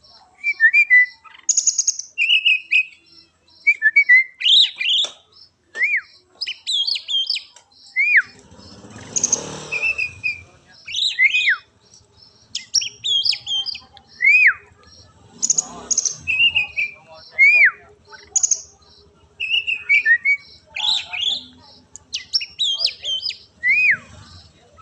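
Oriental magpie-robin (kacer) singing a loud, varied song of whistled phrases, quick chirps and sweeping up-and-down notes, with short pauses between phrases. Twice, about nine and sixteen seconds in, there is a brief rough, noisy sound.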